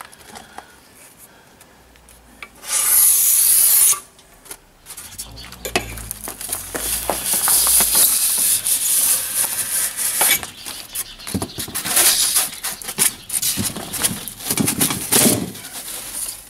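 Knife cutting through a thick styrofoam (EPS) insulation board along a straight edge: a long, scratchy rubbing full of small crackles, starting about five seconds in. About three seconds in there is a loud hiss lasting about a second.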